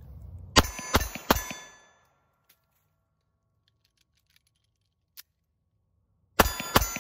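Ruger LCP pocket pistol firing three quick shots, each followed by a ringing metallic tone. After a pause with a few faint clicks of a magazine change and the slide being worked, the pistol fires two more quick shots near the end.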